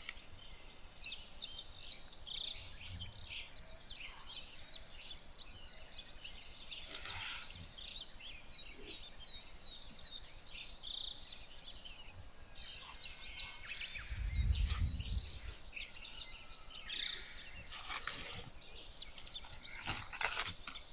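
Outdoor bird chorus: many birds chirping with quick, repeated downward-sliding calls. A low rumble of wind or a microphone bump comes about two-thirds of the way through, and there are a few brief rustles.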